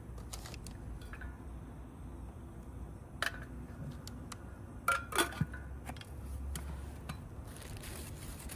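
Camp cookware and utensils being handled: a few scattered light clinks and knocks, the loudest cluster about five seconds in, over a low steady background rumble.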